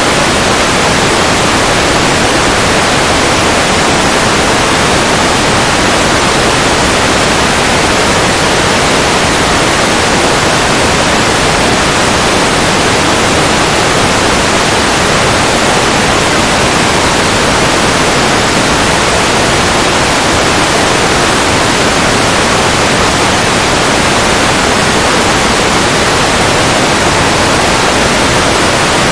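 Loud, steady static hiss from an analog FPV video receiver that has lost the aircraft's signal, the audio side of the snow on screen.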